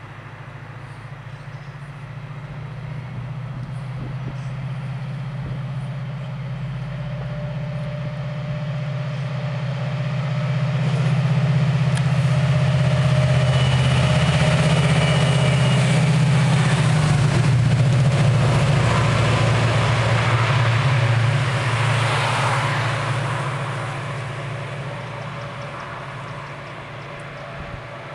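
Two diesel-electric locomotives, DSB ME 1514 leading NSB Di4 654, passing by: the deep rumble of their diesel engines grows as they approach, is loudest as they pass beneath, with a rushing noise from the passing train just after, then fades as they pull away.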